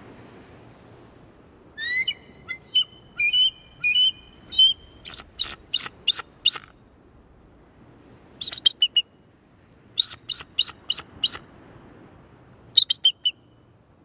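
Bald eagle calling in four runs of thin, high-pitched chirps and piping notes with short pauses between them; the first run is the longest.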